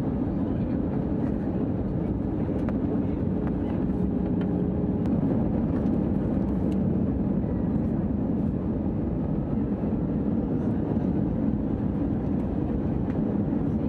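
Airliner cabin noise inside an Airbus A320-200 on the landing approach: the jet engines and rushing airflow make a steady, even low hum.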